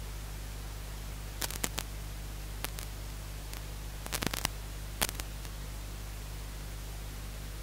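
Steady hiss with a low electrical hum, broken by a few short sharp clicks: a quick run of three about a second and a half in, a single one, then a tight cluster and one more about four to five seconds in.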